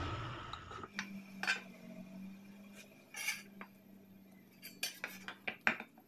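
Light, scattered clinks and taps as an aluminium recessed door handle and a pencil are handled on a plywood board, with a cluster of quick taps near the end. A faint steady hum runs underneath, and a rumble fades out in the first second.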